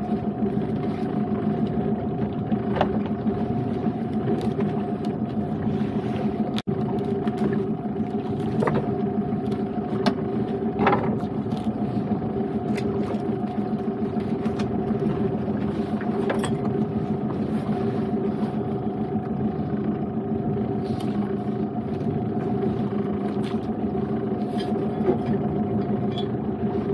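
A small boat's outboard motor running steadily, an even hum at a constant pitch, with a few light knocks on top.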